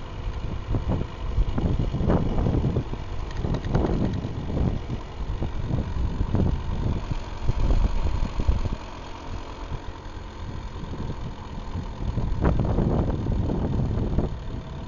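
Gilera RV motorcycle's four-stroke single-cylinder engine running while riding, with wind buffeting the microphone in repeated low gusts.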